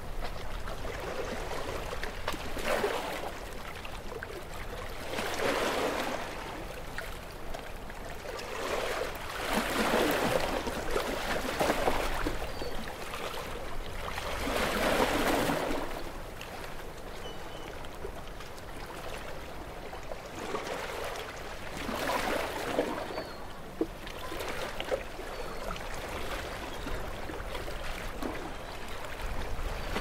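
Small ocean waves lapping, each wash swelling and fading again every few seconds.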